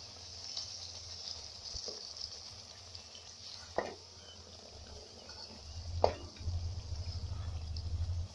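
Spinach poori deep-frying in hot oil with a steady sizzle, as a perforated steel slotted spoon presses it. The spoon knocks sharply against the pan twice, about four and six seconds in, and a low rumble comes up over the last two seconds.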